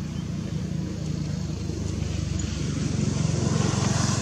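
Motor vehicle engine running with a steady, pulsing low rumble that grows louder toward the end, as a vehicle on the dirt road draws nearer.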